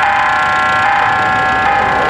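Level crossing warning bells ringing continuously, warning that a train is approaching. It is a steady, high ringing whose pattern shifts a little under once a second.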